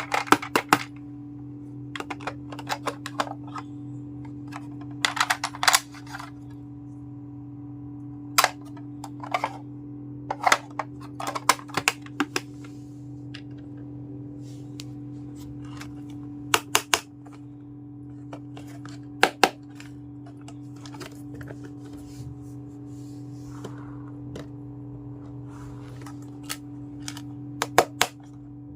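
Small toy kitchen pieces being handled, with irregular sharp clicks and taps, some in quick pairs, over a steady low hum.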